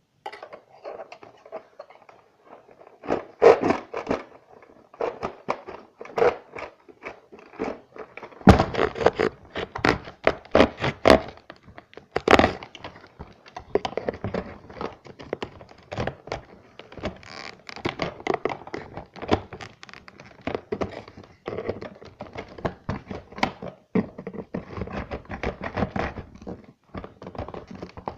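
Packaging and a toy being handled and opened: many irregular knocks and thunks mixed with scraping and crackling.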